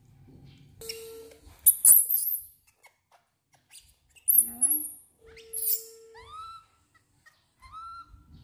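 Baby macaque calling: several short bouts of shrill squeals and chirps, then a few short calls near the end that rise and fall in pitch.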